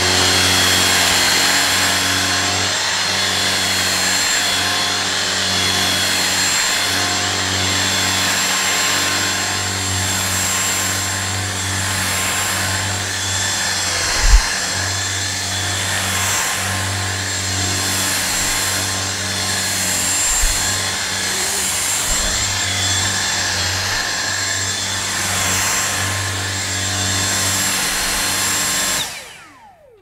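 Dyson V6 cordless vacuum running with its mini motorised brush tool over upholstery fabric: a steady motor whine and airflow rush with high steady tones, broken by a couple of brief knocks. It is switched off near the end, its whine falling away.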